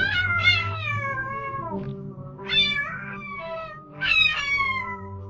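A cat meowing three times in long, drawn-out cries that fall in pitch, over soft background music with held low notes.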